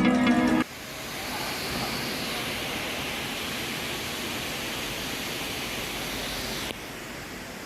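Background music cuts off about half a second in, leaving a steady rushing noise with no distinct events, which drops slightly in level near the end.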